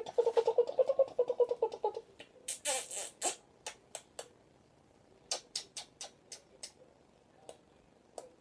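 Wet kissing smacks and beak clicks from an African grey parrot pressing its beak to a woman's lips: a rapid run of smacks for the first two seconds, a short rushing breath-like noise, then scattered single clicks, a quick series of them past the middle.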